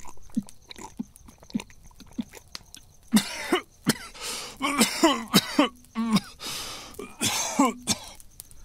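A man swallows with a few quiet gulps, then coughs hard in a string of hacking coughs for about five seconds, as if choking on a drink of water.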